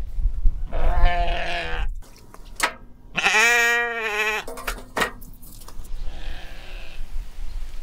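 A farm animal bleating: two long wavering calls of about a second and a half each, the second the loudest, then a fainter third call near the end. A few sharp clicks fall between the calls, over a low rumble in the first two seconds.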